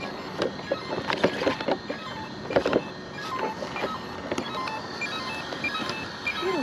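Small radio-controlled car's electric motor whirring in short bursts as it drives, with scattered clicks and knocks.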